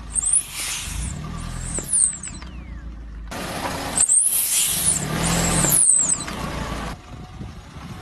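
A squeaky rubber duck squealing as a car tyre rolls onto it and squeezes it: a few very high squeaks that glide up and down, over the low rumble of the car.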